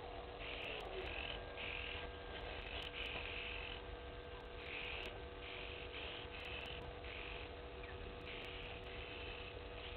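Repeated short buzzy animal calls, about one or two a second and uneven in spacing, over a faint steady hum.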